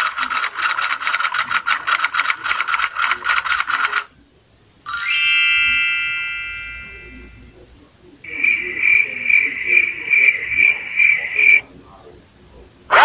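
Downloaded sound-effect clips playing back on a phone, one after another. First a rapid pulsing trill for about four seconds, then a single ringing chime that fades away, then a beeping tone pulsing about two to three times a second.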